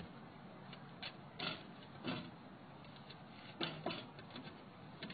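Irregular short scrapes, creaks and clicks from handling the antenna mast, rope and wooden boards on the roof.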